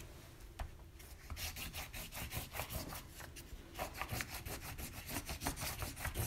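Wax crayon rubbed over paper laid on a piece of rough, weathered wood, making a dry, scratchy rasp. It comes in quick back-and-forth strokes, about four a second, faint at first and louder from about a second in.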